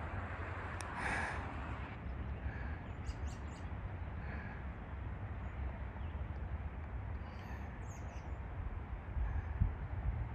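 Open-air ambience: a steady low rumble with a few faint, short bird chirps scattered through it.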